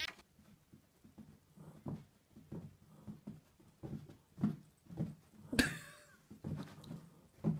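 Two small dogs play-fighting, making a string of short, quiet grunts and growls with one louder, sharper sound about five and a half seconds in.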